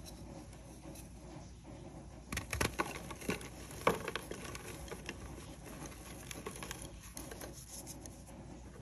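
A glitter-coated grey reformed chalk block crushed in the fist, crunching and crumbling with crisp crackles. The loudest crunches come about two and a half to four seconds in, followed by lighter crumbling of powder and crumbs.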